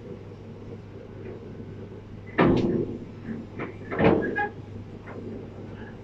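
Two short knocks about a second and a half apart, over a steady low hum.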